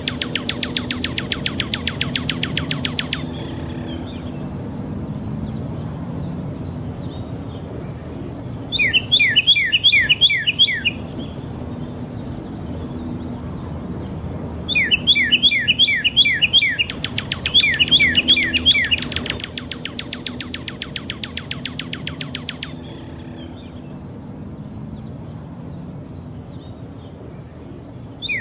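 Songbird singing: repeated bursts of quick, downward-sweeping chirps, about seven to a burst, alternating with very fast trills and short pauses.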